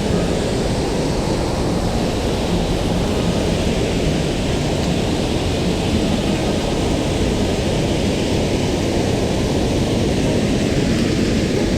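Mountain stream water rushing, a loud steady noise that holds even throughout.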